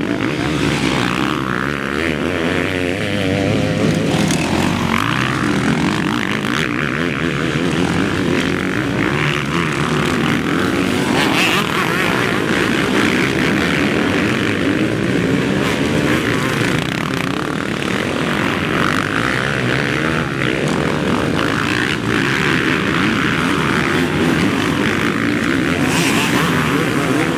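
Several motocross dirt bikes racing through a corner, their engines revving up and down and overlapping continuously.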